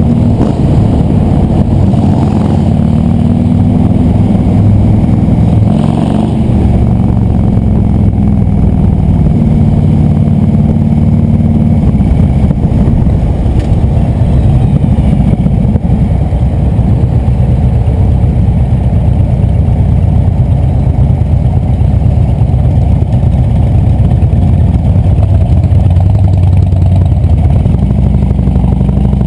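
Cruiser motorcycle engine running loud while riding in traffic, heard from the bike itself. The engine pitch rises and falls through the first dozen seconds, then evens out.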